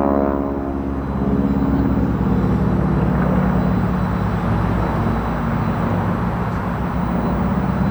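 Propeller airplane flying overhead: a loud, steady engine drone that grows noisier in the middle and turns clearer and more tonal again near the end.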